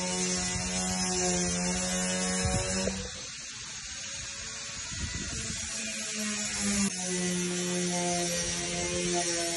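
A steady mechanical hum with a high hiss above it. The hum drops away about three seconds in and comes back about four seconds later.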